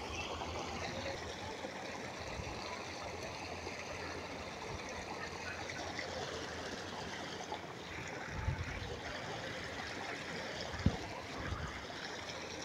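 Steady trickle and splash of water running into a pond at the bank, with a couple of soft low bumps about two thirds of the way through.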